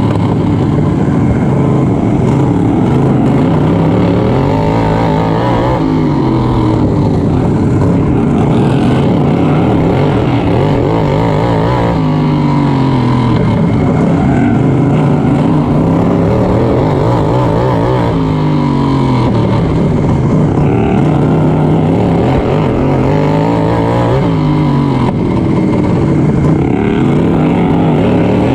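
FXT-class racing lawn mower engine, heard close from the driver's seat, running hard under load. Its pitch rises and falls over and over, every few seconds, as it accelerates and backs off around the dirt track.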